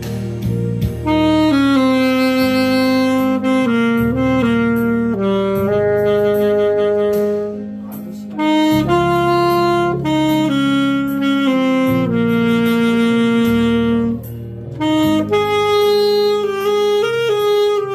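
Alto saxophone playing a slow melody in long held notes over a backing track, coming in about a second in and breaking briefly between phrases.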